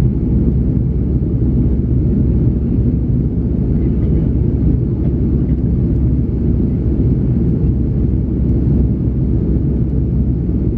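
Steady low rumble inside the cabin of an Airbus A330-300 climbing after takeoff: its Pratt & Whitney PW4168A engines and the airflow are heard as an even drone.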